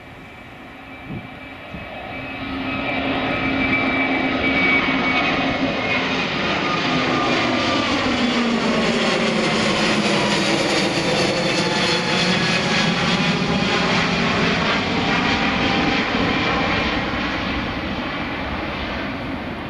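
Airbus A321 jet airliner's turbofan engines at takeoff power as it climbs out: a loud jet roar that swells over the first few seconds, holds as the plane passes close by, with a tone that sweeps down and back up around the middle, then slowly fades as it flies away.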